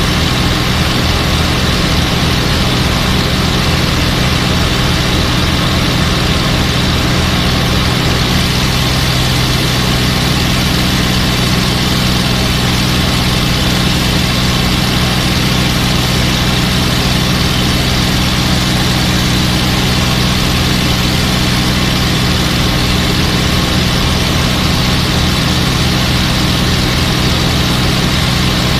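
P-51 Mustang's piston V-12 engine running steadily at cruise power in formation flight, with a droning note and a constant rush of wind and airframe noise, heard from inside the rear cockpit.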